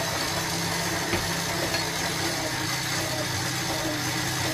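Electric stand mixer running at high speed, kneading bread dough while butter is worked in: a steady motor hum, with a small knock about a second in.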